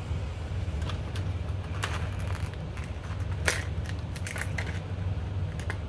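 Light metal clicks and clinks, scattered and uneven, from a bolt and hood-latch parts being handled and fitted by hand, the sharpest about three and a half seconds in, over a steady low hum.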